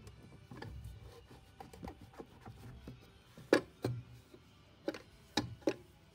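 A sponge scrubbing the inside of a stainless steel automatic horse waterer bowl: scraping and rubbing with a series of sharp knocks against the metal, the loudest about halfway through and a few more near the end.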